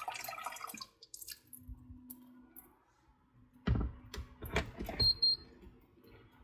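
Electric kettle set down on its power base with a few clunks, followed by a short, high double beep from the kettle.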